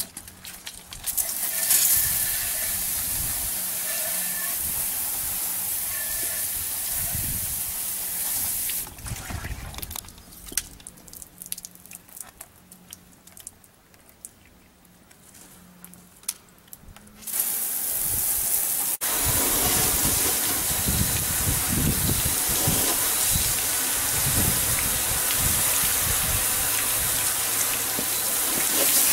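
Water spraying from a garden-hose-fed PVC spray wand in fine jets: a steady hiss that drops away about nine seconds in to a quieter stretch of scattered drips, then starts again about seventeen seconds in, louder and heavier, with water pattering onto the truck.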